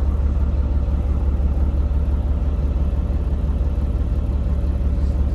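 Semi truck's diesel engine running, a steady low drone heard from inside the cab.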